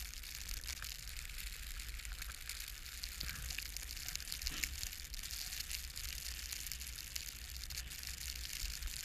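Blizzard wind: a steady hiss with a low rumble of wind buffeting the microphone, and small crunches and ticks scattered through it.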